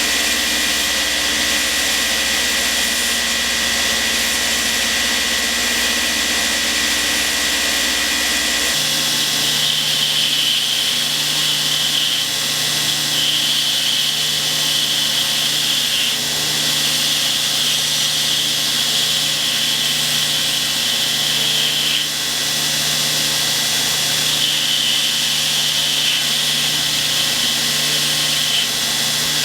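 Belt grinder running steadily while a knife handle block is ground against its 10-inch contact wheel to shape a palm swell. The machine's tone shifts suddenly about nine seconds in.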